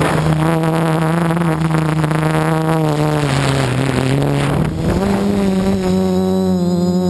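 Quadcopter's electric motors and propellers buzzing steadily, heard from the onboard camera. The pitch sags about three seconds in and climbs back up near five seconds as the motor speed drops and picks up again.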